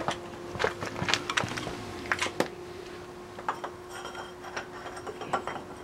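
Scattered metallic clinks and light knocks of a metal oil-filter cup wrench being handled and fitted against a motorcycle's spin-on oil filter, with a faint steady hum underneath.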